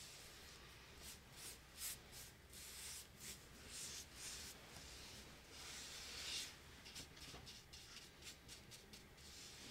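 Faint, irregular scratchy strokes of a paintbrush working paint across a wooden cutout, with a longer stroke about six seconds in and a run of quick, short strokes after it.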